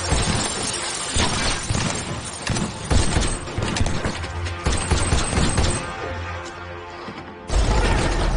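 Dramatic film soundtrack: music mixed with crashes, impacts and glass shattering. It thins out about six seconds in, then comes back loud all at once about a second and a half later.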